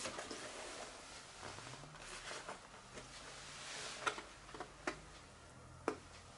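Faint rustling and creasing of a cardboard takeaway box as it is opened and handled, with three short sharp clicks of the cardboard in the second half.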